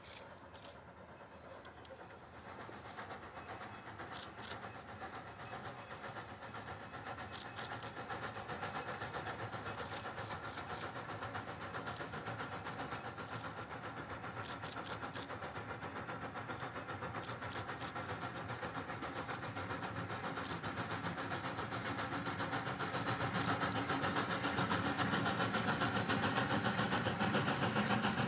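Steam locomotive No. 90, an ex-Great Western 2-10-0, working hard on its approach, its exhaust beats growing steadily louder. A few short bursts of sharp clicks sound over it in the first two-thirds.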